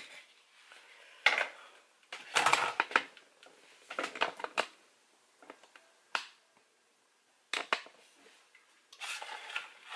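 Scattered plastic clicks and knocks from handling a blender's plastic jar and lid, the motor switched off, coming in a few short clusters with quiet gaps between.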